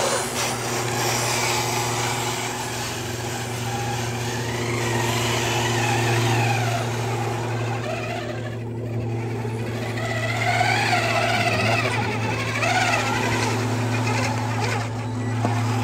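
Radio-controlled model construction machines running: a steady low hum throughout, with small electric motors whining, rising and falling in pitch, as model trucks drive past.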